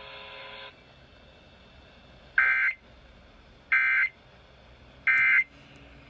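Emergency Alert System digital data tones (SAME bursts) from a radio: three short, shrill data bursts about a second and a half apart. Under a second in, a steady hum cuts off.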